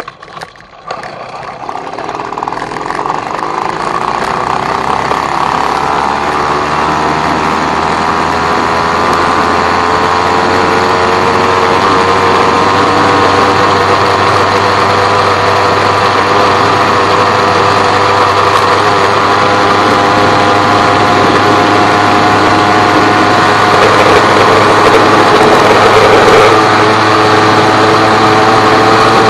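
Small engine of a ridden vehicle pulling away under throttle, getting louder and rising in pitch over the first few seconds, then running steadily at high revs.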